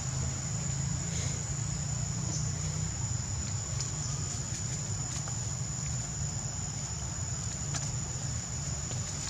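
Insects buzzing in one steady high-pitched note, with a low rumble underneath and a few faint ticks.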